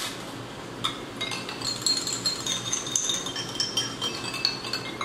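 A spoon stirring instant coffee in a small glass, clinking against the glass over and over so it gives short high rings.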